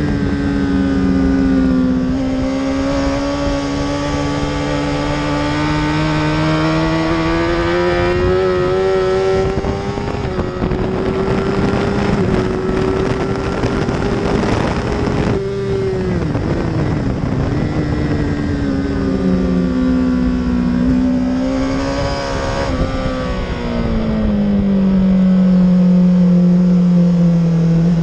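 Honda CBR1000RR's inline-four engine heard onboard at full track pace, its note climbing steadily as the bike accelerates, with wind rush building at speed. Just past halfway the pitch drops sharply as the rider shuts the throttle and slows, then the engine pulls up again and falls once more before settling into a steady lower note.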